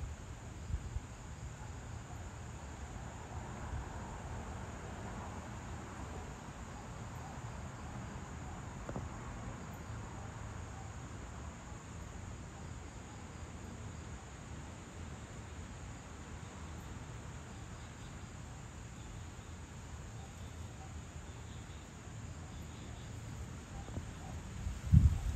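Crickets chirping steadily over a low background rumble. Just before the end, a few loud gusts of wind buffet the microphone.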